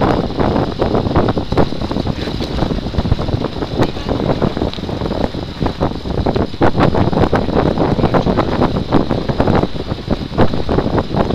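Wind buffeting the microphone of a handheld gimbal camera carried in a vehicle on a rough dirt track. Under it runs a steady rumble, broken by frequent knocks and rattles.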